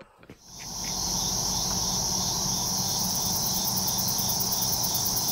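A steady chorus of night insects, fading in about half a second in: a high ringing chirr with a fast, even pulse.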